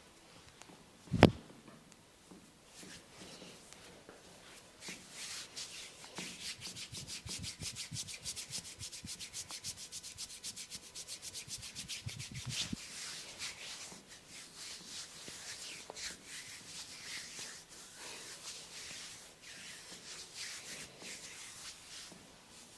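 Fast, rhythmic scratching of hair and scalp, about five strokes a second, going on less evenly after the middle. A single sharp click about a second in is the loudest sound.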